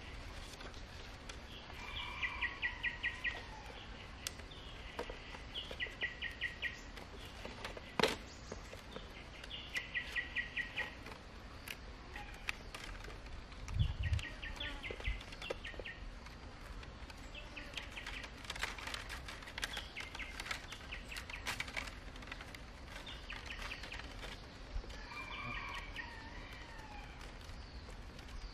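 A bird calling in short, quick trills of repeated notes, a phrase every few seconds, over a steady outdoor hiss. Thin bamboo strips click and rustle as they are woven into a basket, with a single dull thump about halfway through.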